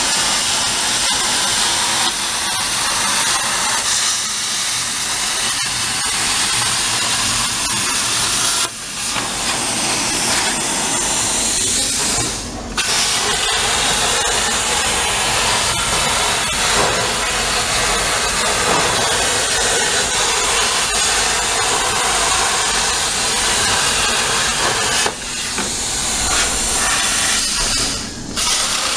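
Plasma torch of a CNC plasma cutting table with a Hypertherm power source, cutting thin sheet metal with a loud steady hiss. The hiss breaks off briefly four times, twice close together in the first half and twice near the end.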